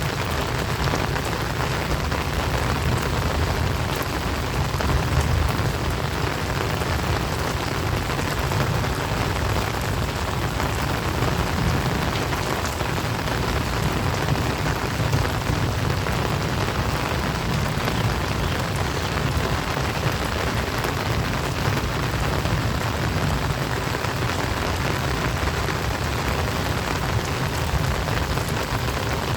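Heavy rain falling steadily, an even dense hiss with a strong low rumble underneath.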